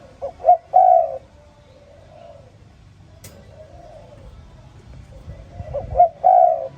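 Spotted dove cooing: two calls about five seconds apart, each a couple of quick short notes running into a longer coo. Fainter, softer coos sound in between.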